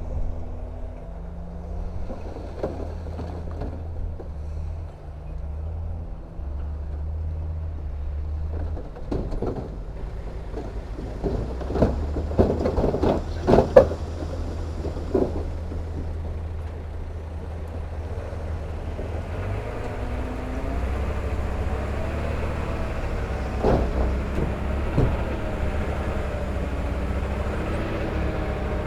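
Heavy diesel earthmoving machinery running steadily, with a cluster of sharp metallic clanks and knocks a little before the middle. In the second half an engine works harder, its pitch wavering up and down.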